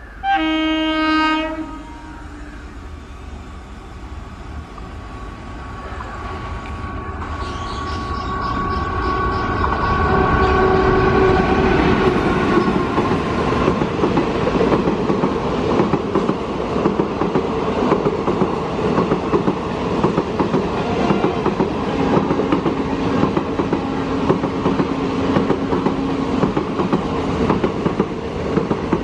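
An electric locomotive hauling a long Indian Railways passenger train sounds its horn once, for about a second and a half. The train then approaches, growing louder, and runs through the station without stopping, with the steady clickety-clack of its coaches rolling past close by.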